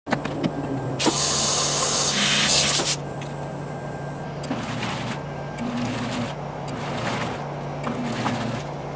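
Mini washing machine running: a loud rushing hiss for about two seconds near the start, then the wash motor's hum, which changes pitch in alternating spells every second or so.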